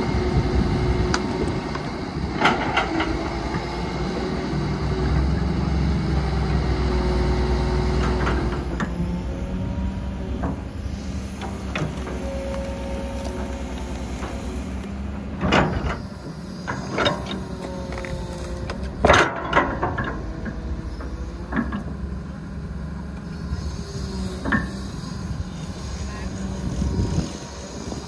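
Heavy diesel machinery running steadily, typical of an excavator working at a truck-loading site, its engine note shifting as it works. Several sharp clanks sound through it, the loudest pair about two-thirds of the way through.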